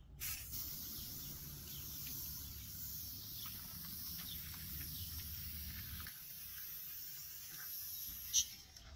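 WD-40 aerosol can spraying onto a car tyre's sidewall: a steady hiss that starts just after the beginning and stops near the end, with one brief sharp click just before it stops.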